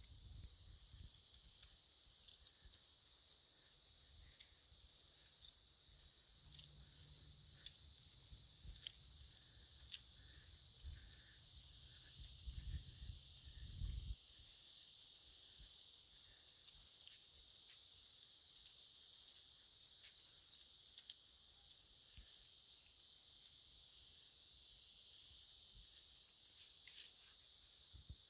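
Steady insect chorus, an unbroken high-pitched drone in two bands, with a low rumble underneath that stops about halfway through.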